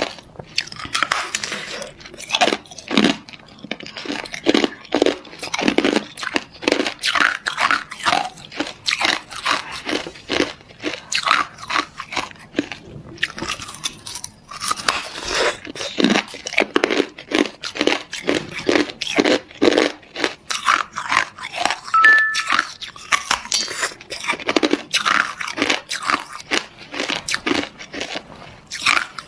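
Hard ice being bitten and chewed close to the mouth: dense, irregular crunching and cracking as pieces of a thick ice chunk break between the teeth.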